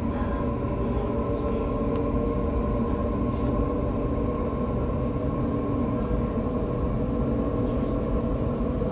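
Electric suburban train heard from inside the carriage as it moves slowly out of the station: the traction motors give a steady whine of several tones over a low rumble of wheels on rail.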